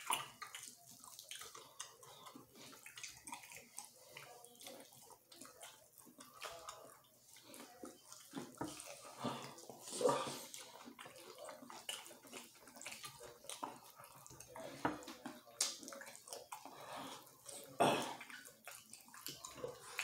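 Close-up eating sounds of fried chicken: wet chewing, lip smacking and meat being torn apart by hand, in small irregular smacks and clicks, with a couple of louder ones about halfway and near the end.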